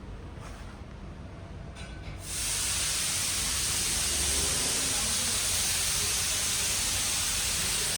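Compressed air hissing steadily from an air tool. It starts abruptly about two seconds in, over a low rumble, and cuts off suddenly at the end.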